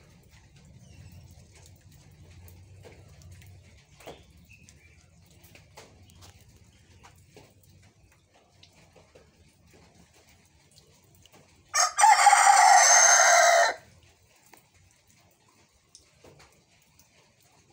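Rooster giving a single short, hacking crow that sounds hoarse and rasping rather than clear, lasting about two seconds and starting abruptly about two-thirds of the way in. The rest is faint background with a few small clicks.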